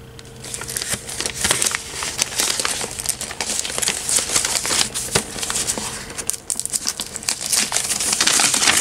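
Stiff paper gift wrapping crinkling and rustling as hands unfold it and peel it off a cardboard box. The rustling starts about half a second in and gets louder toward the end.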